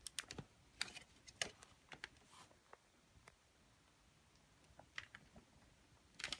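Light plastic clicks and taps from handling and fitting together the parts of a Hoover Air Lite vacuum cleaner: a handful of clicks in the first two seconds or so, a quiet stretch, then a few more near the end.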